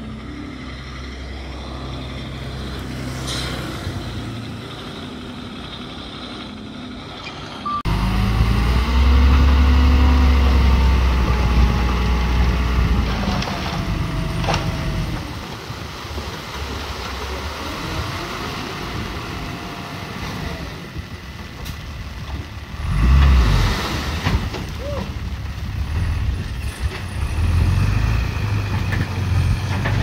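Komatsu D31P bulldozer's diesel engine running at work, stepping up louder about eight seconds in. A wavering whine runs over it for several seconds, and a brief loud rush of noise comes later.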